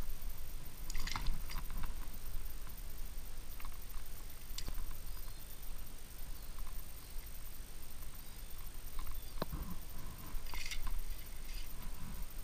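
Short rustles and small water splashes as a brown trout is handled in a landing net, over a low steady rumble.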